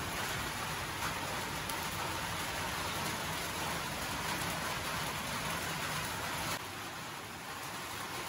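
A steady, even hiss like rain falling. It drops slightly in level about three-quarters of the way through.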